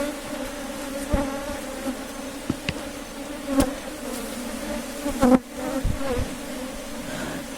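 Honey bees buzzing around an open hive: a steady, dense hum. A few sharp knocks cut through it, the loudest about five seconds in.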